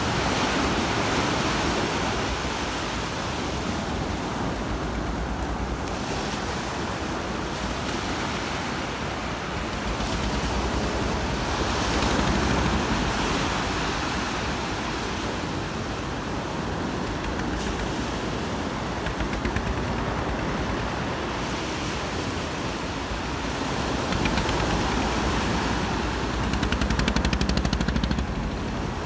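Ocean surf breaking and washing up a sandy beach, a continuous rushing noise that swells louder with each wave every several seconds.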